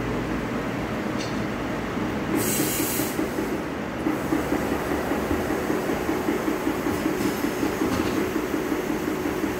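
A short burst of hiss about two seconds in, typical of compressed air in a tyre shop. From about four seconds in, a tyre machine's motor runs with an even pulse about three times a second.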